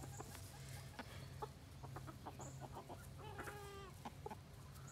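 Chickens clucking quietly in short, scattered calls, with one longer drawn-out call about three and a half seconds in.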